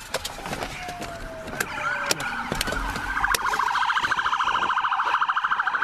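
Police car siren: a slow falling wail, then from about three seconds in a rapid pulsing yelp, loud and steady. Several sharp knocks and clicks come through it.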